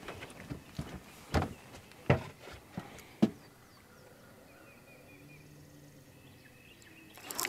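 A few sharp thuds and knocks on a boat deck over the first three seconds, footsteps and bumps as he moves to the bow to a rod with a bite, then a quiet steady outdoor background.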